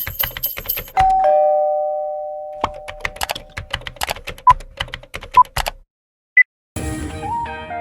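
A two-note chime rings out and slowly fades. Then comes a run of rapid clicks like keyboard typing, with a couple of short beeps. After a brief silence, guitar music starts near the end.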